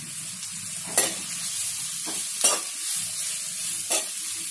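Sliced onions with ginger and garlic sizzling in hot oil in an aluminium kadai as they are stirred, with a spoon knocking against the pan three times.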